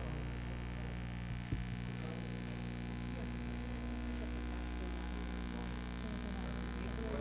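Steady electrical mains hum, with a single click about a second and a half in.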